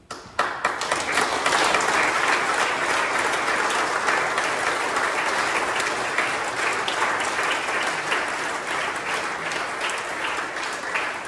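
Audience applauding: the clapping breaks out suddenly and slowly dies down.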